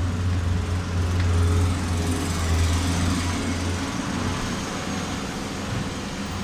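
Diesel engine of heavy construction machinery running steadily, with a strong low hum that eases off about four seconds in.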